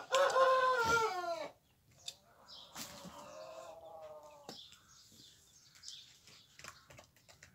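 Chickens calling: a loud, drawn-out call of over a second that falls in pitch at its end, then a quieter, shorter call about three seconds in. Near the end come scattered light taps of a hen pecking grain from a bowl.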